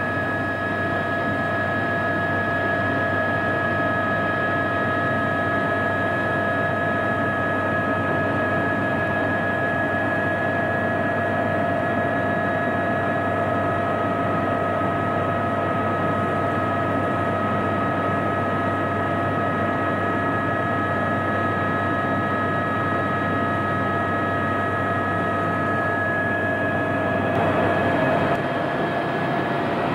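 Cabin noise of an Aérospatiale AS350B Squirrel helicopter in flight, with its Turbomeca Arriel turboshaft running: a steady whine of several held tones over a broad rush of engine and rotor noise. There is a short, slightly louder patch near the end where the tones shift.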